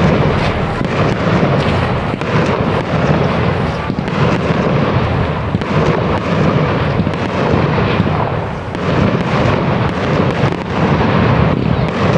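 Large fireworks display: a continuous barrage of firework bangs and crackling with no pause between them.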